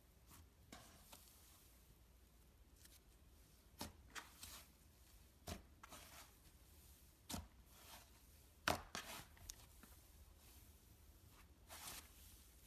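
Slime being handled and pressed, giving scattered soft sticky pops and clicks at irregular gaps, the sharpest a little under nine seconds in, with a short softer crackle near the end.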